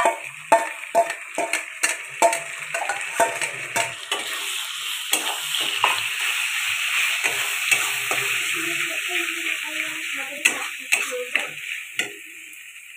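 Ginger-garlic paste and browned onions sizzling in hot oil in a kadai, stirred and scraped with a metal spatula that clicks and taps against the pan. The sizzle gets louder through the middle, and the tapping stops about a second before the end.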